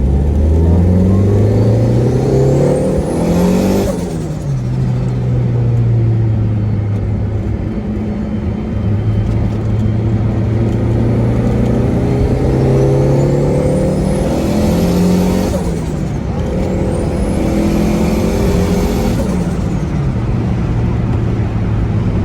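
Turbocharged car engine accelerating hard, heard from inside the cabin: three pulls, each with the revs climbing and a high turbo whistle rising, then dropping off sharply on lift-off about four seconds in, again near the middle and shortly before the end. Between the first two pulls the engine holds a steady cruising note.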